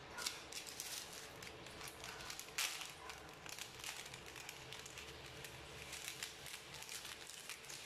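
Chicken frying in a pan with a steady fine crackle, mixed with the crinkle of plastic seasoning sachets being handled and torn open.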